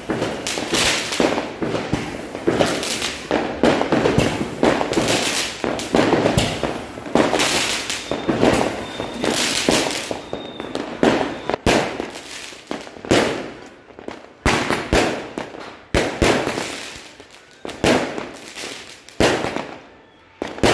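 Fireworks going off in a steady run of bangs, each with a trailing echo. The bangs come close together at first, then thin out into sharper, more widely spaced cracks in the second half.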